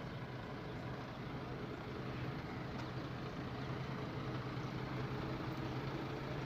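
Diesel engine of a truck-mounted concrete pump running steadily at constant speed, with a low, even hum.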